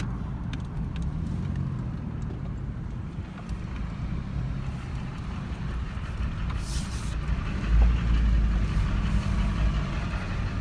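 Vehicle interior engine and road noise while driving: a steady low rumble, with a brief hiss about two-thirds of the way through and a louder low surge just after it.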